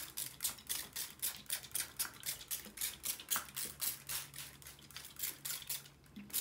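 Hand trigger spray bottle misting water onto soil in quick repeated squirts, several a second, each a short hiss.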